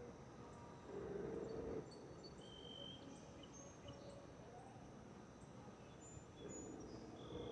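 Faint outdoor ambience with scattered short, high bird chirps and insect calls. A low hum swells briefly about a second in and again near the end.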